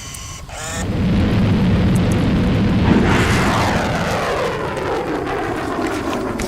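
Aircraft- or rocket-like sound effect: a rumble that builds up about half a second in, then a whoosh whose pitch falls steadily from about the middle on, like a craft passing by.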